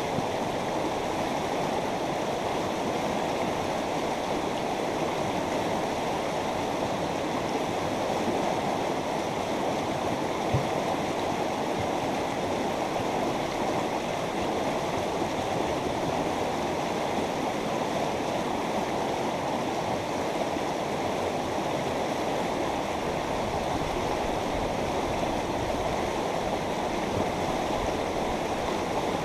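A mountain river running over rocks: steady, continuous rushing and babbling of flowing water.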